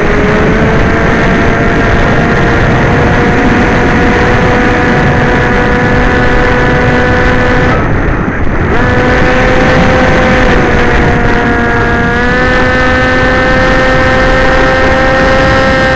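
Electric motor and propeller of an FPV chase aircraft, heard from its onboard camera: a steady high whine under heavy wind rush. The whine cuts out for about a second halfway through, returns, and steps up slightly in pitch a few seconds later as the throttle changes.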